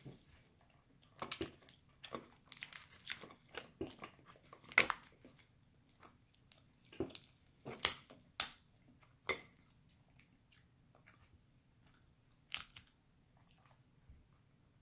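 Crab leg shells being cracked and snapped apart by hand, a series of sharp, irregular cracks in clusters, the loudest about five seconds in. Wet chewing and biting come in between the cracks.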